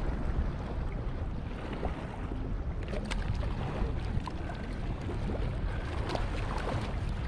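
Wind buffeting the microphone over small waves washing and splashing across a rock ledge at the water's edge, a steady rushing noise heaviest in the lows.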